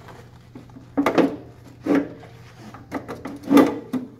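Slide tray of an RL600 lift carriage being pushed along its slide rails into the frame, giving a few short scraping, rubbing knocks, loudest about a second in, at two seconds and near the end. A faint steady low hum runs underneath.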